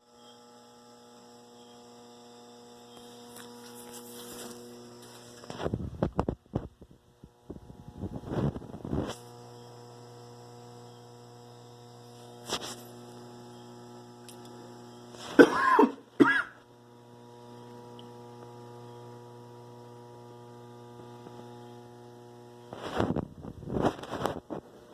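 Refrigerator humming steadily, broken at irregular intervals by loud knocks and cracking sounds. A brief squeaky creak comes about a quarter of a minute in.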